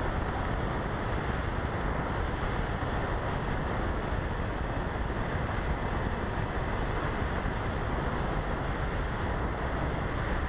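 Steady wind rushing over the onboard camera's microphone of a radio-controlled Easy Glider in flight, an even, unbroken hiss with no motor tone standing out.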